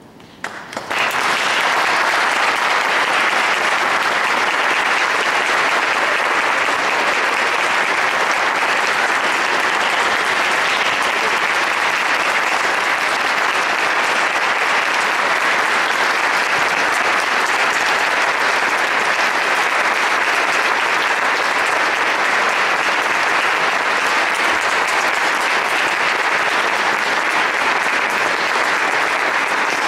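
Concert audience applauding, breaking out suddenly about a second in after a quiet moment and then continuing steadily.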